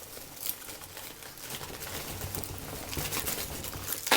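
Hands digging through loose packing peanuts in a cardboard shipping box, a rapid irregular rustling and clicking.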